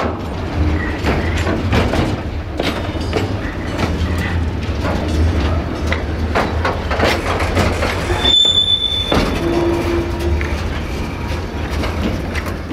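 Container flat wagons of an intermodal freight train rolling past, the wheels clattering over the track in repeated sharp knocks over a low rumble. A brief high wheel squeal comes a little past the middle, followed by a short lower squeal.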